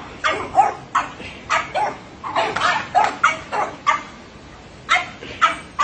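Small dogs barking in a rapid string of short, sharp yaps, about two a second, with a brief pause about four seconds in.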